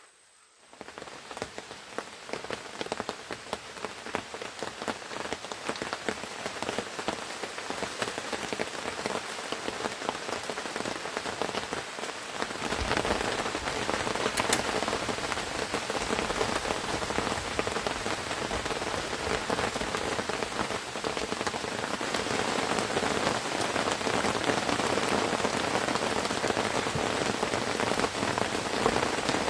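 Heavy tropical rain falling steadily on and around the hut. It comes in within the first second and grows louder and heavier about halfway through.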